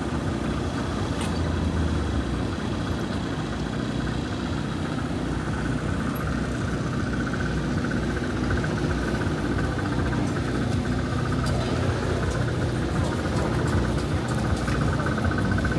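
Steady low hum of motor-vehicle engines with traffic noise, running evenly without sudden events.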